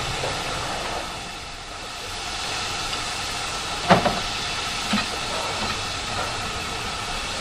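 Great Western 5101-class 2-6-2T tank engine No. 5199 moving slowly, with a steady hiss of steam. Two sharp knocks come about a second apart midway through, the first the louder.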